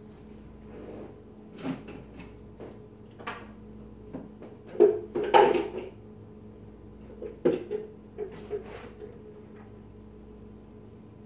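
Irregular knocks and clattering from kitchen cleaning, loudest in a cluster about five seconds in and again about seven and a half seconds in, over a steady low hum.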